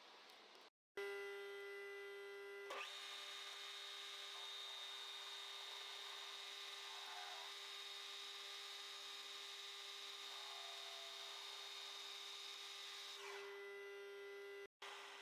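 Harrison M300 metal lathe running, its spindle turning a three-jaw chuck with a steady whine of fixed tones. Near the end the motor winds down and stops.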